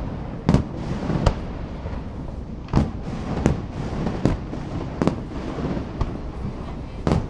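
Aerial fireworks shells bursting: about eight sharp bangs at uneven intervals, some followed by a short echoing tail.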